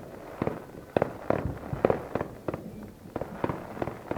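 Fireworks bursting: a quick, irregular string of sharp bangs, about three a second, each trailing off in a short echo.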